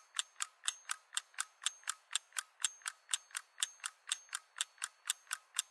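Rapid, even mechanical ticking, about four to five ticks a second.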